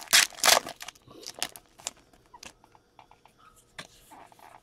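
Foil trading-card pack wrapper torn open with two quick rips in the first second. The cards inside are then handled and flipped through, giving small crinkles and card taps.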